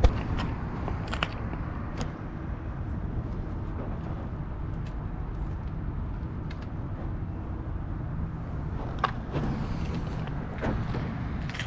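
Street traffic: a steady low rumble of passing cars, with a few brief clicks.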